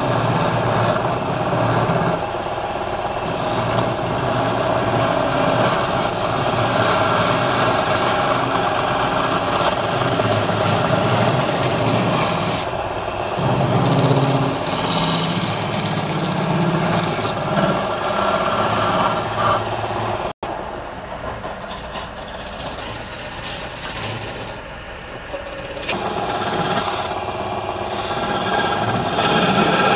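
Wood lathe running while a turning tool cuts a spinning wooden cylinder: a steady scraping, rasping hiss of wood being shaved over the hum of the lathe. The sound cuts out for an instant about two-thirds of the way through, is quieter and duller for a few seconds, then the cutting comes back loud near the end.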